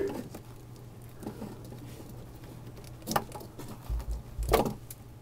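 A hand wiring tool clicking and snapping on wire ends, with faint rustling of wires being handled; a couple of sharp clicks and low knocks come about three and four and a half seconds in. A steady low hum sits underneath.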